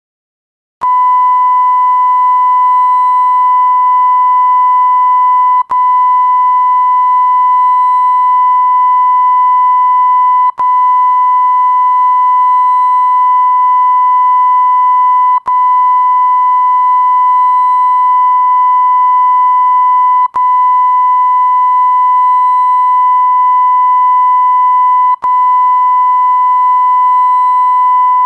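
Censor bleep sound effect: a steady, loud 1 kHz sine tone that comes on just under a second in and holds, with a brief break roughly every five seconds.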